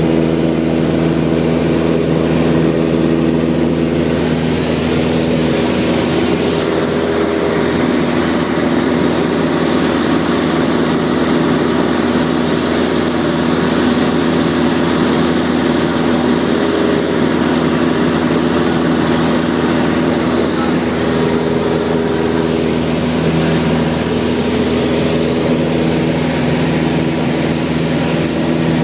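Beechcraft light aircraft's engine and propeller droning steadily, heard from inside the cabin; the steady hum turns rougher and less even for a stretch in the middle, then steadies again.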